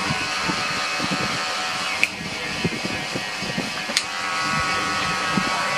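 Electric hair clippers buzzing steadily as they cut short hair at the nape, with two sharp clicks, about two seconds in and about four seconds in.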